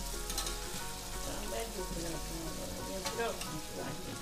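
Stuffed squid frying in a steel pot with tomato sauce thinned with water, sizzling steadily, with a utensil stirring in the pot.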